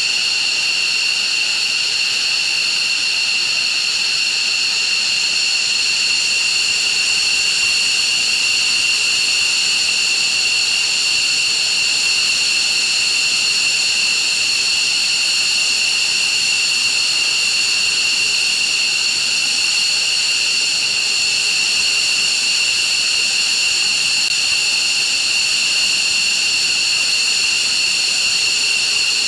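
F-15 fighter jet engines idling on the flight line: a steady, unchanging high-pitched whine made of several fixed tones.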